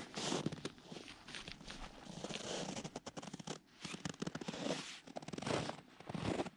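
Irregular rustling, scuffing and soft crunching, as of someone moving about and handling the ice shelter's nylon fabric door.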